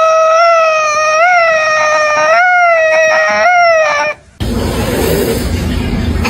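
A dog howling: one long, steady howl that wavers slightly in pitch and stops about four seconds in. A steady noisy rumble follows.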